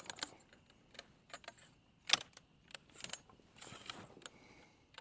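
Shotgun barrel being cleaned: a cleaning tool is drawn through the bore and pulled out, with scattered metallic clicks and knocks and a short rasping scrape near the end.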